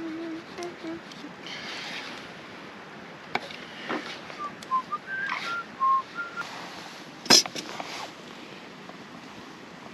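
A few short whistled notes at slightly different pitches in the middle, after low hum-like tones at the start; a single sharp clack about seven seconds in is the loudest sound.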